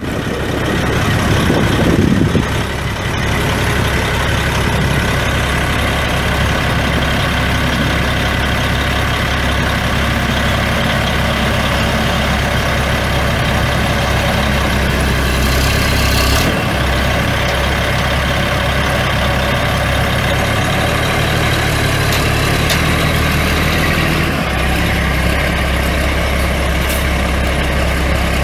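Cummins 10-litre inline-six turbo diesel in a 1994 Ford LN9000 dump truck, running at a steady idle. The engine swells louder about two seconds in, and there is a short hiss about halfway through.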